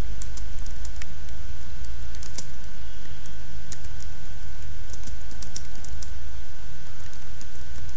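Typing on a computer keyboard: irregular light key clicks as a sentence is typed, over a steady low hum.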